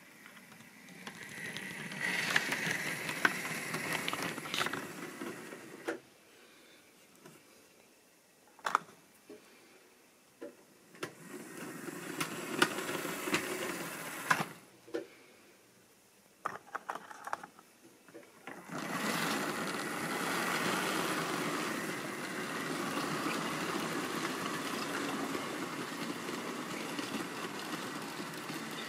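Electric model railway train running along the track, its small motor whirring. It runs in short spells with a few sharp clicks in between, then steadily from about two-thirds of the way in.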